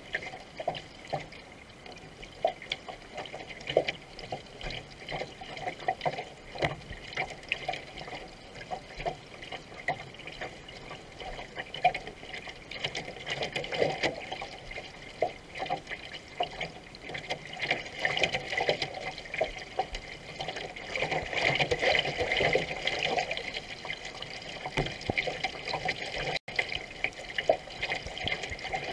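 Water rushing and splashing along the hull of a racing canoe under way, with the splash of paddle strokes; it grows louder for a few seconds past the middle.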